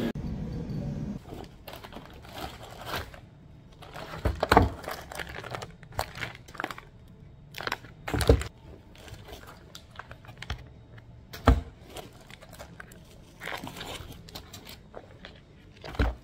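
Objects being handled at close range: scattered crinkling and clicking, with four louder dull knocks spread through.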